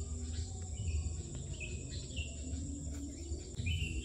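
Insects trilling steadily at a high pitch, with short, slightly falling bird chirps several times, over a steady low rumble.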